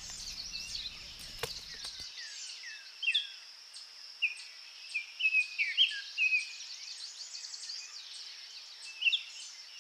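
Birds calling with short, falling chirps and whistles, several in quick succession near the middle, over a steady high-pitched insect drone.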